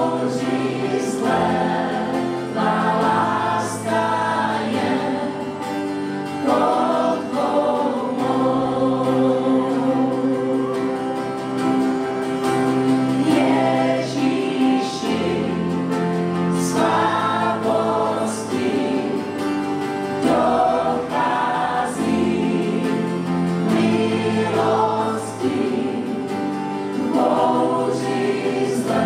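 Worship band singing a Czech worship song in several voices together, with acoustic guitar and keyboard accompaniment.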